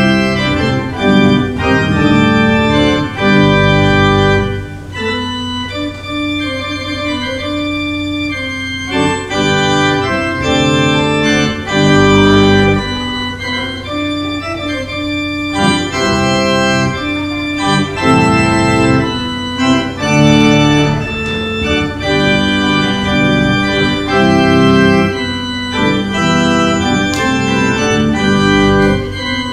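Church organ playing the postlude after the dismissal: full sustained chords that change every second or so over a held low bass note.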